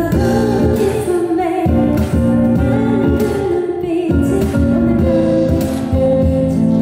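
A woman singing a pop ballad live over instrumental accompaniment.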